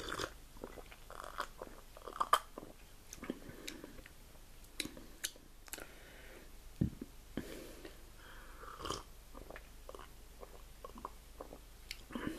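A person tasting soda: quiet sips and swallows with wet mouth clicks and lip smacks at irregular moments, the sharpest click about two and a half seconds in.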